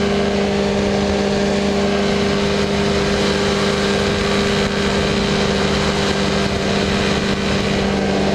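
Powered parachute engine running steadily at cruise power in flight, an even drone that holds one pitch throughout, with a rush of air noise.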